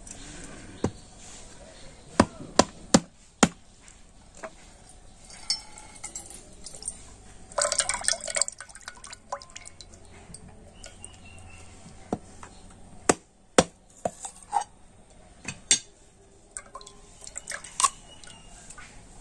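Sharp knocks of a knife striking a coconut's hard shell to crack it open, several in quick succession, then coconut water splashing into a steel mug for about a second, followed by more scattered knocks and drips as the shell is split.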